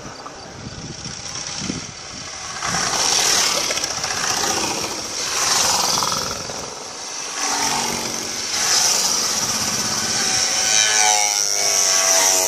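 Motorcycles riding past one after another, the engine sound swelling and fading as each goes by. Near the end one bike passes close and its engine note grows louder.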